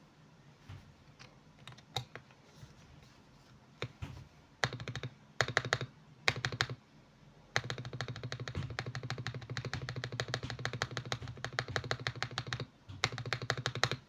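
Mechanical keyboard with lubed Akko switches being typed on. A few scattered keystrokes come first, then short bursts of fast typing, a long rapid run of keystrokes through the middle, and one more burst near the end.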